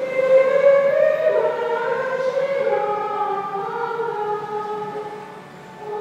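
Nuns' choir of women's voices singing a slow hymn, holding long notes that step from pitch to pitch, with a short breath pause near the end.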